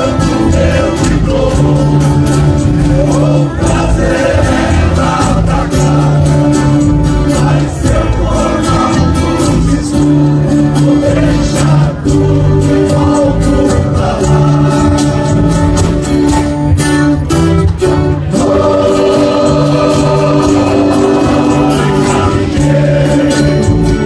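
A Brazilian country (música caipira) ensemble of violas caipiras and acoustic guitars playing live, with several men singing together over the strummed and plucked strings.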